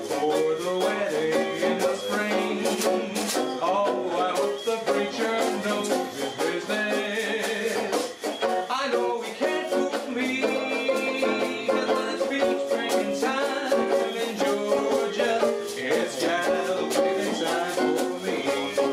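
Mento banjo played solo in a lively, steady rhythm of quick picked and strummed notes.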